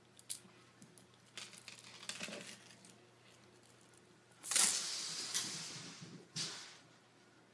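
A few scattered clicks and rustles, then a loud scraping rattle about four and a half seconds in that fades over a second or so, and a shorter one near the end: a string of plastic beads being tossed and skidding across a laminate floor.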